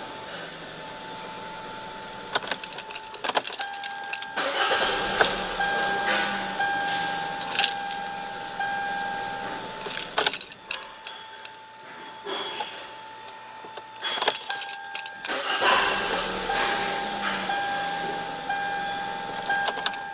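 Car keys jangling and clicking in the ignition of a 2014 Hyundai Elantra GT, with an on-and-off warning tone and the engine being cranked and started, as the intermittent no-start fault is tried again.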